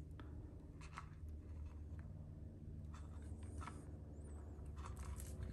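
Faint scratchy rubbing and scattered light clicks from hands working a borescope probe cable in an engine's spark plug hole, over a low steady hum.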